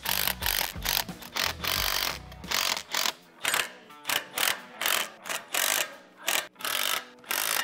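Cordless driver running nuts down onto U-bolts in many short stop-start bursts, two or three a second.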